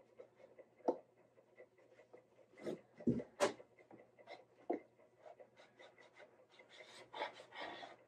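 Hands working a thin wooden archtop guitar top on a workbench: light rubbing and scattered taps, with a cluster of knocks about three seconds in as the top is turned over and set down, and a rustle near the end.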